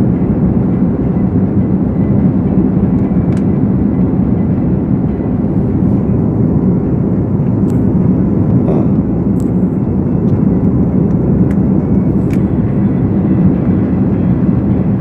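Steady cabin noise of a jet airliner in flight, the engines and rushing air heard from inside the passenger cabin by a window seat, with a few faint ticks.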